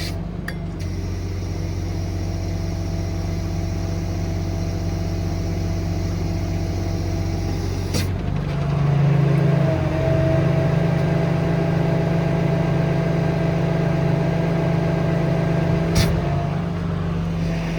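Cummins 8.3 ISC diesel engine running steadily while the truck's hydraulics extend and lower the outriggers. About eight seconds in there is a click, then the engine note rises and gets louder, with a steady whine over it. Near the end another click comes and the note drops back.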